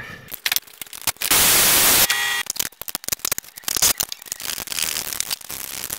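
Hand ratchet clicking irregularly as 19 mm motor-mount nuts are worked loose, with a loud hiss lasting under a second about a second and a half in.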